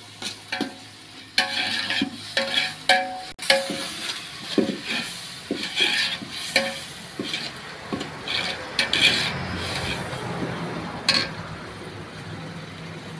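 Slotted metal ladle scraping and knocking around a metal pot as onions, tomatoes and ginger-garlic paste are stirred and fried, with a frying sizzle underneath. Some of the knocks in the first few seconds leave the pot ringing briefly.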